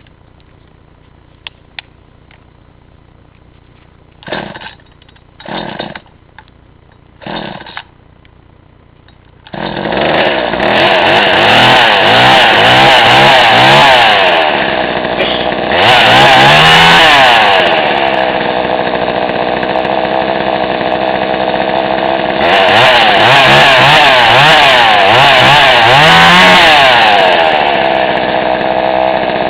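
Craftsman Poulan 2300CV two-stroke chainsaw being pull-started: three short bursts as the starter cord is pulled, then the engine catches about nine seconds in. It runs and is revved up hard several times, its pitch rising, dropping back to a steadier run between revs.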